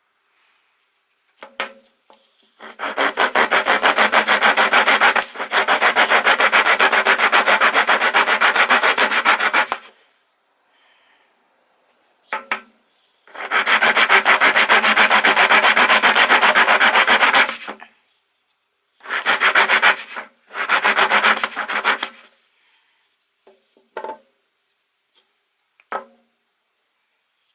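Coarse half-round steel wood rasp scraping across wood in fast back-and-forth strokes. Two long runs of rasping are separated by a pause, then come two shorter runs and a few single scrapes near the end.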